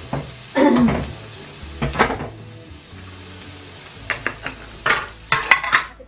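Cookware clattering and scraping in about five sharp bursts over a frying sizzle.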